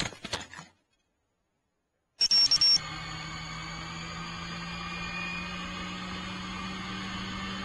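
FPV quadcopter crash ending: a few last knocks as it tumbles to rest, then the sound cuts out completely for about a second and a half. It comes back with a brief loud burst and a high beep, then a steady low hum from the quad sitting on the ground.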